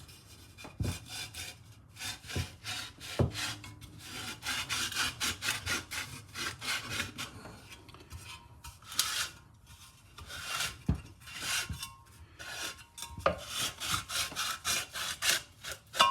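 Hand tools working a small screw clip loose on the metal fittings of a British Seagull outboard: repeated short scraping, rasping strokes, with a few sharp clicks among them.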